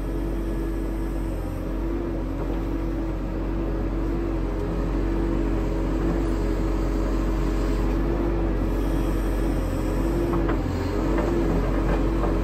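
Compact excavator's diesel engine running steadily with a constant hydraulic whine, heard from inside the cab, while the bucket is moved slowly.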